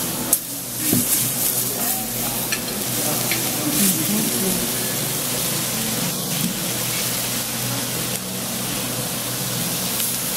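Meat and vegetables sizzling steadily on a hot pierrade cooking stone, with a few short clicks as a fork lifts and turns a slice of meat on the stone.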